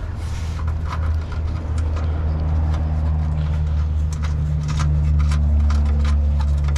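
Socket ratchet clicking in short, irregular runs as bolts are threaded in, over a steady low hum.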